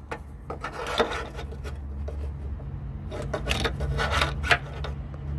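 Rubbing and scuffing handling noise with several sharp clicks, over a steady low hum.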